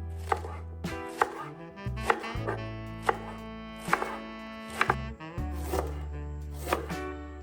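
Kitchen knife chopping vegetables on a cutting board: about eight slow, separate strokes roughly a second apart, over soft background music.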